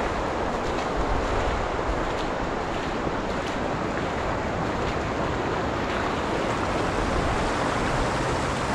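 Muddy storm runoff flowing steadily in a broad shallow sheet over a flooded dirt street, with wind rumbling on the microphone.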